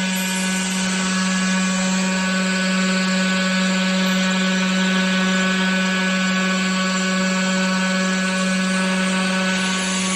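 Tomahawk Pro CNC machine's spindle running at a constant speed while machining a plate: a steady hum with a hiss of cutting over it.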